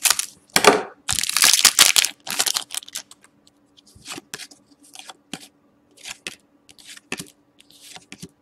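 Scissors cutting open a foil trading-card pack, the wrapper crinkling loudly for about two seconds. Then softer short rustles, about two a second, as the stiff die-cut cards slide against each other while being flipped through.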